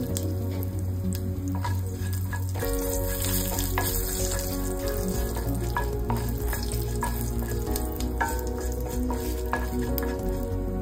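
A tempering of dals, mustard and cumin seeds, dried red chilli and curry leaves sizzling steadily in hot oil in a stainless steel pan. A spatula stirs it, with scattered light clicks and scrapes against the pan.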